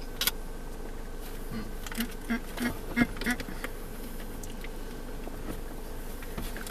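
Close mouth sounds of people eating soft cookies: chewing and finger-licking with a couple of sharp smacks near the start. About two seconds in comes a quick run of about six short hummed voice sounds.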